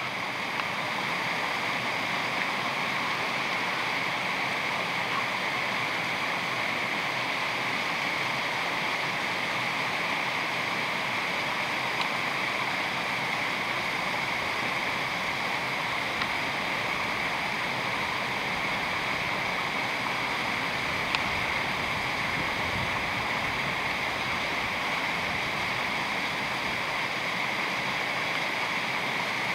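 Small woodland stream pouring out of a stone culvert and falling down a short cascade: a steady, unbroken rush of falling water.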